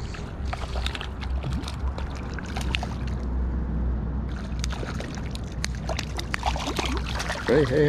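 River water splashing and sloshing, with many small splashes and clicks over a steady low rumble. Near the end a person's drawn-out, wavering voice starts and becomes the loudest sound.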